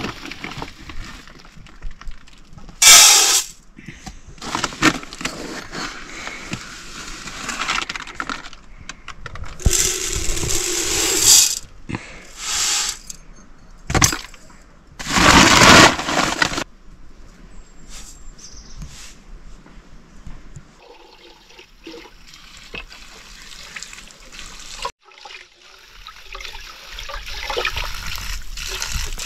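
A plastic rice sack rustling at first, then water poured and splashing into an aluminium pot in several loud bursts; near the end, a steady swish of hands washing rice in a bowl of water.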